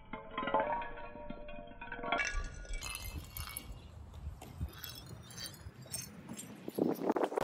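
Background music for about two seconds, then a run of light glassy clinks and clattering knocks, as of a smartphone in its case striking and knocking against a hard surface. The loudest knocks come near the end.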